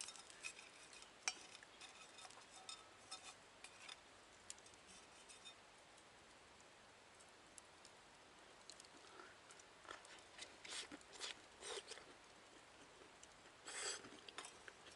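Near silence with faint, scattered clicks and light clatter, like utensils handled at a charcoal grill. A small cluster comes about ten to twelve seconds in, and a brief louder rustle comes near the end.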